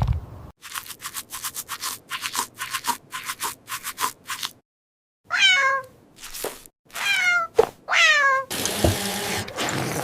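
A cat meowing three times, each call falling in pitch, after a quick run of light ticks at about four a second. A noisy hiss with a thump follows near the end.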